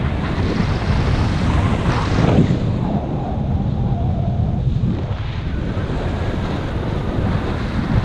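Wind rushing over a GoPro HERO5 Black's microphone in paragliding flight: loud, gusty buffeting that swells briefly about two seconds in.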